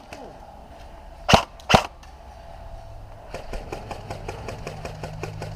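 Airsoft gun shots: two loud sharp shots about half a second apart, then, a little past halfway, a quick run of lighter clicking shots at several a second.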